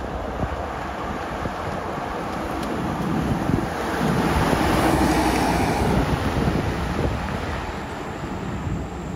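1990 Mercedes-Benz G-Wagon 250GD with its rebuilt OM602 inline-five turbo diesel driving past, getting louder as it comes close about halfway through, then fading as it drives away. Wind buffets the microphone.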